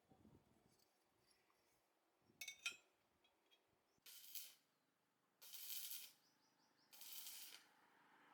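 A few light metallic clinks, then three short hissing sprays, each about half a second long.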